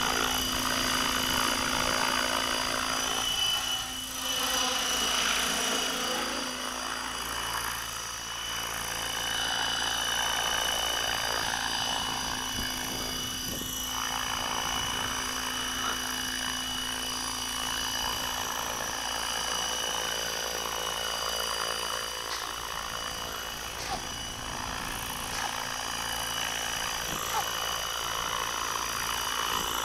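Electric 600-size RC helicopter (HK600GT with a 1200KV brushless motor) in flight: a steady high motor-and-gear whine over the rotor hum. Pitch and loudness swell and fall as it moves around, most clearly a few seconds in.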